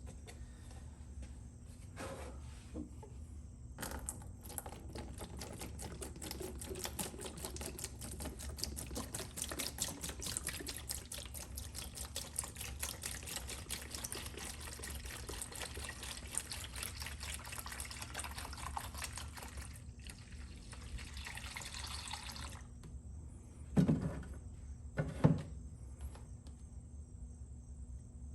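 Evapo-Rust rust remover being poured into a bucket: a steady pour with fine splashing that starts about four seconds in and stops near twenty-two seconds. Two thumps follow about a second apart.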